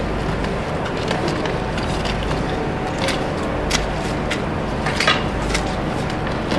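A steady low engine rumble under scattered sharp cracks and knocks from burnt, smouldering timber debris being worked over.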